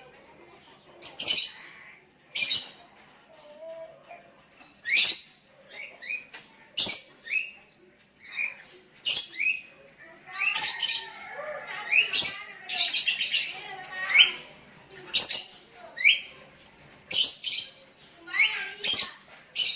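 Sooty-headed bulbuls calling: short, clear, sliding phrases repeated every second or two, with more than one bird answering back and forth. The calling is busiest around the middle.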